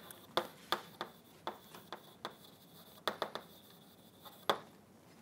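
Chalk writing on a blackboard: a string of short, sharp taps and scratches at an uneven pace as words are written. One tap about four and a half seconds in stands out.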